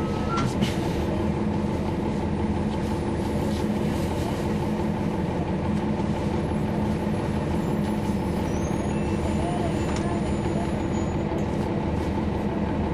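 Cummins ISL9 inline-six diesel engine of a 2011 NABI 416.15 transit bus running steadily with an even hum, heard from inside the bus. A short click sounds about half a second in.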